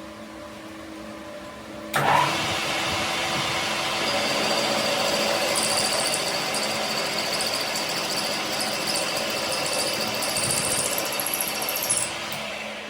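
A power tool working metal starts abruptly about two seconds in, runs steadily at full load for about ten seconds, and stops near the end.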